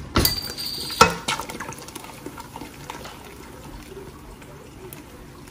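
A glass beer bottle's cap prised off with a bottle opener: a sharp click, then a second click about a second in. Beer then pours from the bottle into a thick batter with a soft liquid sound.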